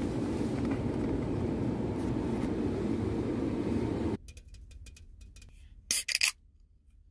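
Steady background noise of a shop for the first four seconds, then a few light clicks of fingers on a ring-pull can, and the Maxwell House canned coffee's pull tab snapping open in two quick loud bursts about six seconds in.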